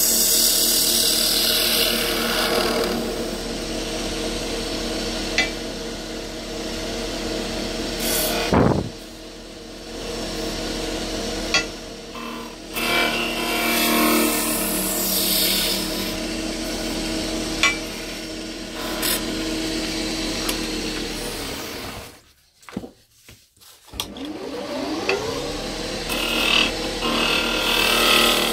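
Wood lathe running while a turning tool scrapes and cuts the spinning wood: a steady motor hum under a rough, hissing scrape, with a few sharp clicks. The sound cuts out for about two seconds late on, then resumes.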